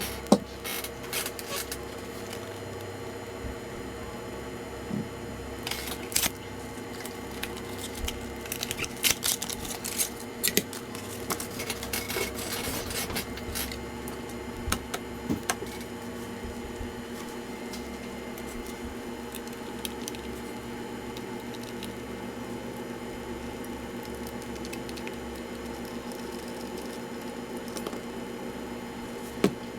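Light clicks and taps of hands working on a laptop's plastic case and parts, over a steady hum. The clicks come thick in the first half and then thin out to a few.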